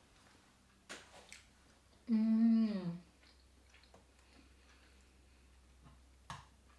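A woman humming "mmm" with pleasure for about a second while eating elderberry soup, the pitch dipping at the end. A spoon clinks against the china soup bowl twice before it and once near the end.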